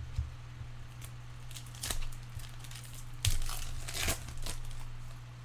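Chrome baseball trading cards being handled and flipped through, giving a few short crinkling, papery rustles, the loudest about three seconds in, over a steady low hum.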